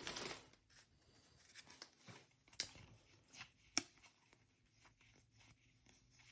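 Trading-card pack wrapper rustling briefly at the start, then faint, scattered ticks and light handling noise as cards are taken out and handled.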